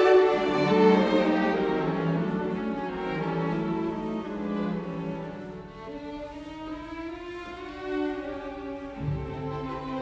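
Slow background music on bowed strings, violin and cello, playing long held notes.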